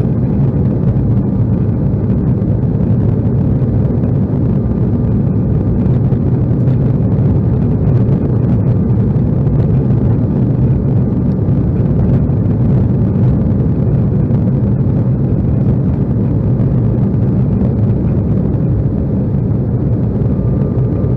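Steady cabin noise inside an Embraer E175 jet during departure: its GE CF34-8E turbofan engines running at high power, mixed with the rush of air past the fuselage, with a faint steady whine above.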